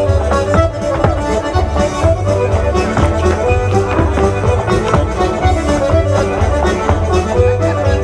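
Live traditional dance music from a band, with a steady pulsing beat.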